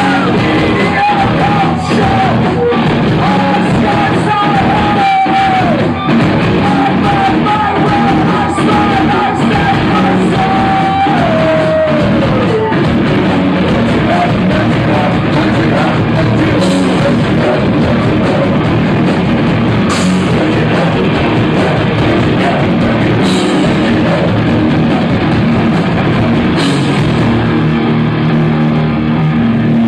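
Live rock band playing loud, heavy music with drums and yelled singing, recorded from the crowd. A long held high note slides downward about eleven seconds in, and cymbal crashes hit every few seconds in the second half.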